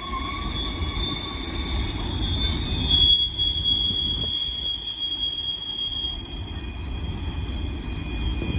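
Steel wheels of a BNSF double-stack container train squealing on a curve, a thin high squeal over the low rumble of the passing cars. The squeal fades out about six seconds in while the rumble goes on.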